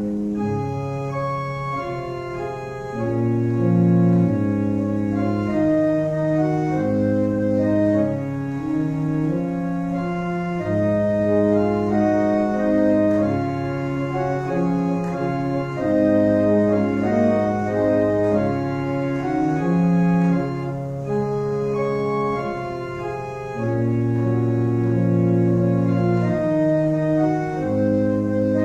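Pipe organ playing slow held chords over a bass line, the notes changing every second or so.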